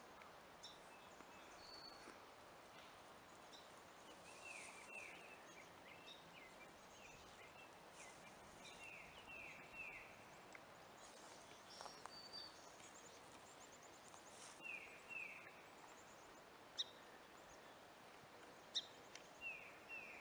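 Faint outdoor ambience with small birds calling: short downward-slurred notes repeated in twos and threes every few seconds, with scattered higher chirps. A few short sharp clicks stand out near the end.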